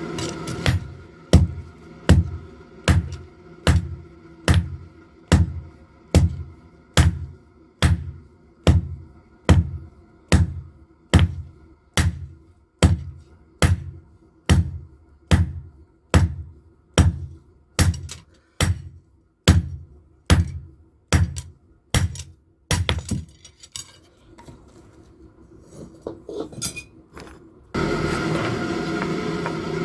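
Steady, rhythmic hammer blows on metal at an anvil, about one a second, forging a knife blade. The blows stop about three-quarters of the way through, followed by a few faint clinks. A steady mechanical hum starts near the end.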